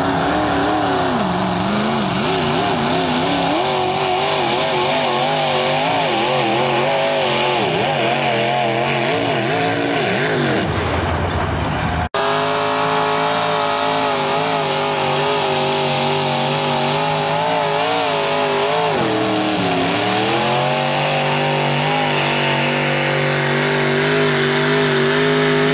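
Mini modified pulling tractors' engines running at high revs while dragging a weight-transfer sled, one tractor after the other. The first engine's pitch wavers up and down; after an abrupt cut about halfway through, the second runs steadier, dips in pitch once and climbs back.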